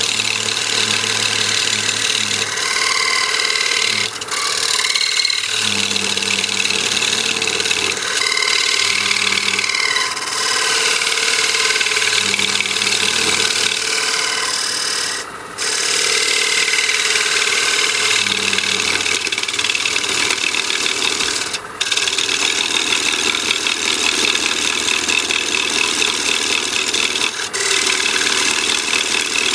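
Wood lathe spinning a poplar hollow form while a narrow turning tool cuts in to part it from its glue block: a continuous, loud scraping cut over the lathe's hum. The cut stops briefly several times as the tool comes off the wood.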